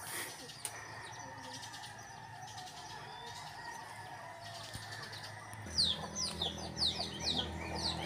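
Chickens calling in a farmyard. It is quiet at first, then from about six seconds in comes a run of short, high peeps falling in pitch, a few per second.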